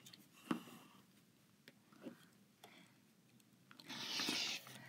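A rotary cutter's round blade rolling through cotton fabric along the edge of an acrylic ruler on a cutting mat: one brief rasping cut near the end, after a soft knock about half a second in.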